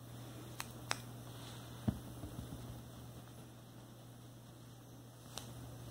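Steady low hum with a few light clicks near the start and end, and a soft thump about two seconds in.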